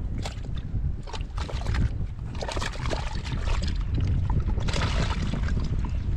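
Steady low rumble of wind on the microphone, with repeated scraping and wet splashing as bare hands dig into a small muddy, water-filled hole in dried, cracked mud.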